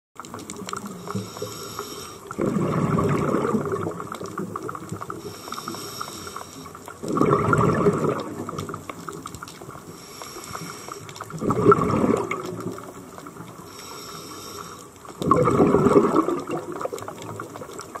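Scuba diver breathing through a regulator underwater: four gurgling rushes of exhaled bubbles, about one every four seconds, with a fainter hiss between them.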